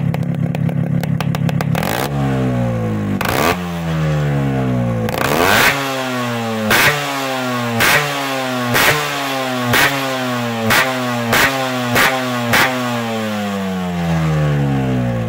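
Yamaha RX two-stroke single-cylinder motorcycle running through a custom S.U.R aftermarket silencer. It idles at first, then from about two seconds in it is blipped about ten times, each quick rev falling back down, the blips coming faster in the middle. Near the end the revs sink back toward idle.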